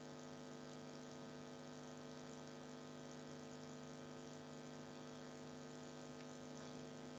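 Faint steady electrical hum with a layer of hiss, the background noise of an open microphone on a video call.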